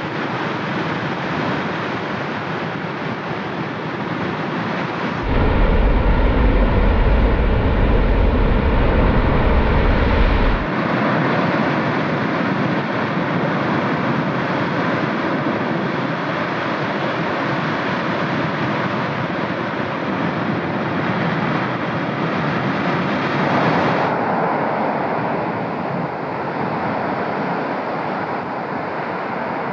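Cumbre Vieja volcano erupting: a steady, continuous rushing noise from the vent, changing abruptly at cuts between takes. From about 5 to 11 seconds a louder take carries a heavy deep rumble.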